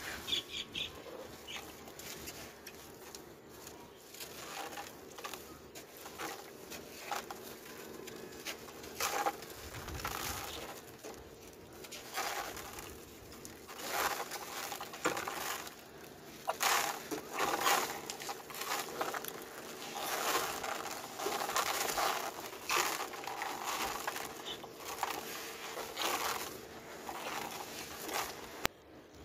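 Hands squeezing and crumbling damp chunks of sand and dirt in a plastic tub: a run of irregular gritty crunches and crumbles, with bits falling back into the tub. They grow busier and louder about halfway through.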